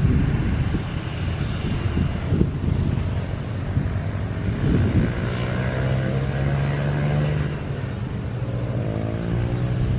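Airliner engine noise with wind buffeting the microphone. About halfway through, a whining tone comes in, slides down in pitch, then rises again near the end.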